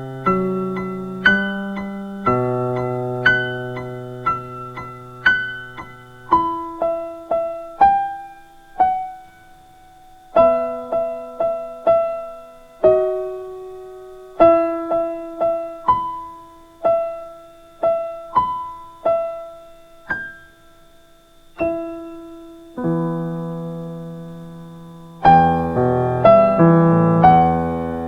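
Slow instrumental music on a piano-like keyboard: single notes struck one at a time that ring and fade, over low held chords at first. The playing thins out in the middle, and fuller chords come in a few seconds before the end.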